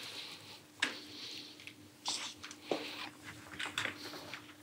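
Border collie nibbling and licking a treat from a hand: a few faint, short smacking and chewing sounds.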